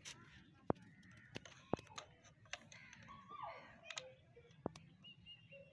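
Hands handling the white plastic casing of a TP-Link CPE220 outdoor Wi-Fi unit and its box: a few sharp plastic clicks with lighter taps and rustles between them.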